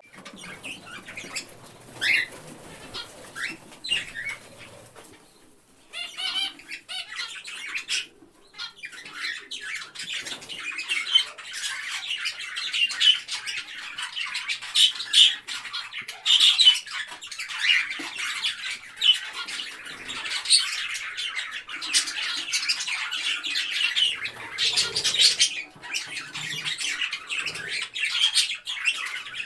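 Parrot calls: a few scattered squawks at first, then from about six seconds in a dense, continuous run of short, overlapping calls.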